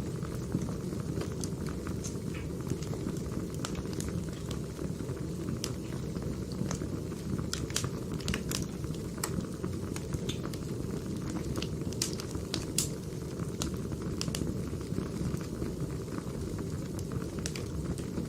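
Firewood burning: a steady low rush of flame with irregular sharp crackles and pops scattered throughout.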